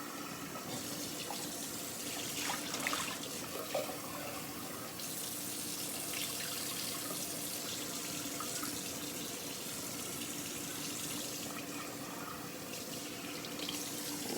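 Kitchen faucet running steadily into a sink while rice is rinsed, with a few small knocks and splashes of the rice being washed.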